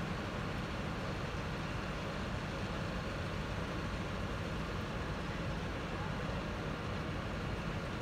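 Mobile crane's diesel engine running steadily as it hoists a cut pine top on its telescopic boom.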